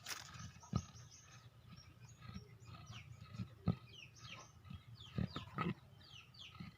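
A sick, heavily pregnant goat giving short grunting coughs with labored breathing, four times: signs of a respiratory illness. Small birds chirp quickly throughout.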